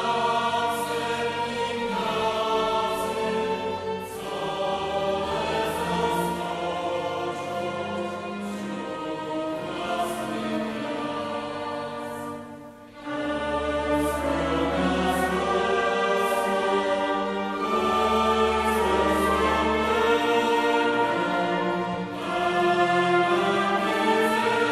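Mixed choir singing in held chords with a small orchestra of strings and winds, deep bass notes underneath; a brief break between phrases about halfway through.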